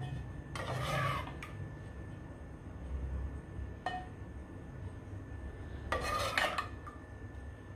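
Metal spoon scraping a dish as thick custard is spooned out, twice: once about a second in and again about six seconds in, with a single light click between.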